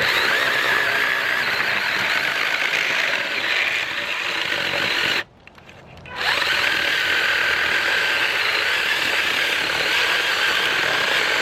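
Worx 20-volt cordless mini chainsaw running as it cuts into a tree trunk, a steady high electric whine with chain noise. About five seconds in it stops for a second, then spins back up with a rising whine and cuts on.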